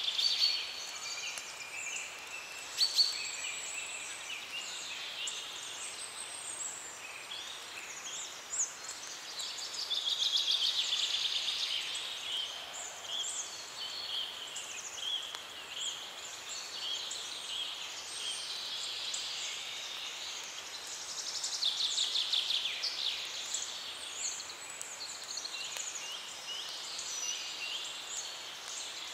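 Small songbirds singing and chirping, several at once, with fast trills that swell and fade, over a steady background hiss.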